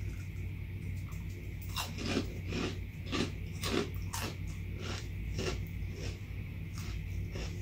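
Someone chewing a crunchy puffed plant-based pork rind (rice and pea-protein snack): a run of crisp crunches, about two a second, starting about two seconds in.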